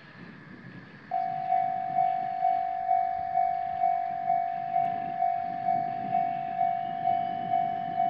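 Japanese level-crossing warning bell starting up about a second in and ringing steadily, a single repeated clang a little over twice a second. The crossing signal has activated for an approaching train.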